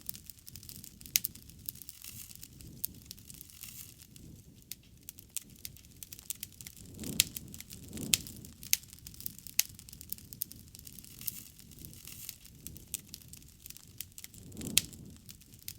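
Wood fire crackling, with many small sharp pops over a low rumble of flames. A few louder pops come about seven, eight and fifteen seconds in.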